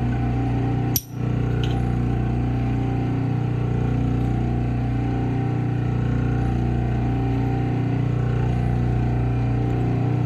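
Clipper-blade sharpening machine running with a steady hum as blades are ground on its spinning charged plate, with a brief click and drop in level about a second in.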